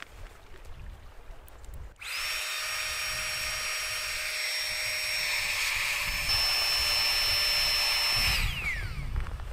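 Small electric air pump running steadily with a high whine as it inflates a Therm-a-Rest NeoAir Topo Luxe sleeping mat through a valve adapter. It switches on suddenly about two seconds in and winds down with a falling whine near the end.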